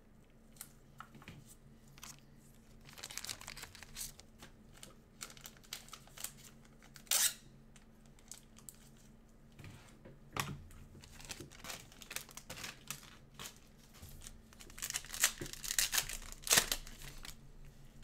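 Trading-card pack wrapper being crinkled and torn open by gloved hands: irregular bursts of crackling and rustling, with a short loud burst about seven seconds in and a longer stretch of crinkling near the end.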